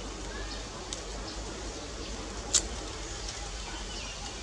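Steady outdoor background noise with a faint low hum, a couple of faint ticks about a second in, and one sharp click or snap about two and a half seconds in.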